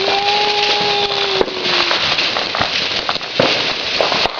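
A ground firework fountain spraying sparks with a steady hiss and crackle, broken by several sharp pops. A steady whistling tone sounds over about the first second and a half.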